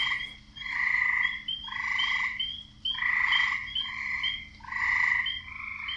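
Frogs calling: a pitched croak about half a second long, repeated roughly once a second.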